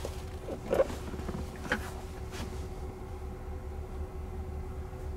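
Cabin ambience inside a stationary car: a steady low rumble with a faint steady hum. Two short, sharp sounds come about a second and two seconds in.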